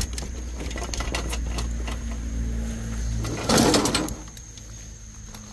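Steady low mechanical hum with a faint steady whine. A short burst of rustling noise comes a little past halfway, and the hum falls away after it.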